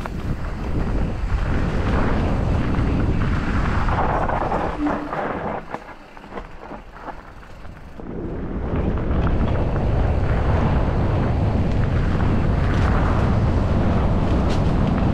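Wind buffeting the microphone, with tyre and frame noise from a 2020 Kona Process X mountain bike riding down a dirt trail. The noise drops off for a couple of seconds near the middle, then returns at full level.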